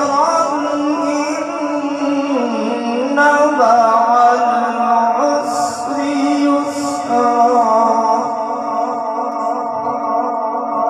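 A man chanting Quran recitation (tilawat) in long, drawn-out melodic phrases. His voice holds each note for seconds and glides slowly up and down in pitch.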